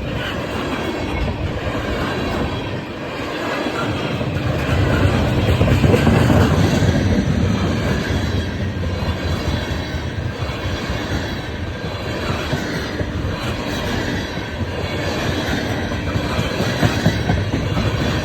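Long freight train passing close by, its cars rumbling and clattering along the rails with faint thin high wheel squeal, swelling louder about five seconds in.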